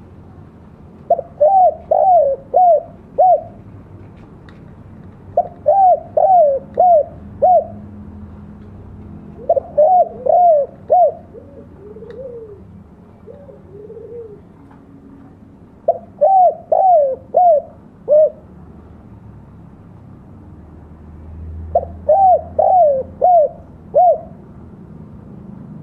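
Spotted dove (tekukur) giving its advertising coo, a phrase of four or five quick notes repeated five times a few seconds apart, with a couple of softer, lower coos in the middle. This is the 'kuk dua' call style, prized as a lure call for trapping.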